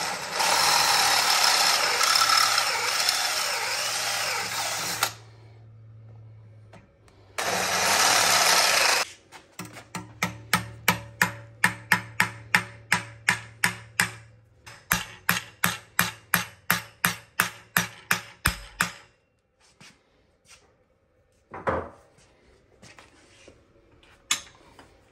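Cordless drill boring out a throttle body bushing, one run of about five seconds and a shorter second run, followed by a small hammer tapping metal in rapid strokes, about three a second, in two runs, then a few single knocks.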